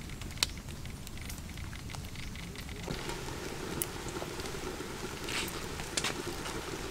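Wood fire crackling with scattered sharp pops under a covered pot simmering, the sound filling out about three seconds in.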